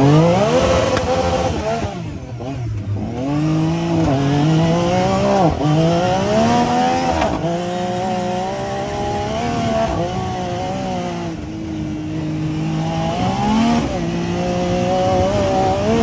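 Yamaha side-by-side UTV engine heard from the cab under hard acceleration: its pitch climbs and then drops back several times as it shifts up through the gears.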